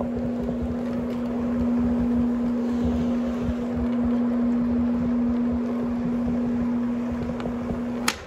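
Rotary carpet-cleaning machine running over carpet, its motor giving a steady hum with a low even tone over the scrubbing noise. The motor cuts off with a click about eight seconds in.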